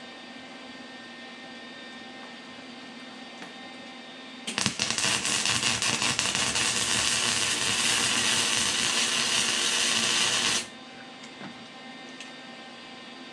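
Electric arc welding: the arc strikes with a few sputtering pops about four and a half seconds in, then crackles and sizzles steadily for about six seconds as a railroad spike is welded to a steel plate, and cuts off abruptly.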